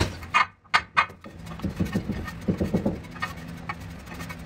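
Metal putty knife scraping and spreading stone adhesive across a granite strip, with a few sharp scrapes and clicks in the first second and softer scraping after.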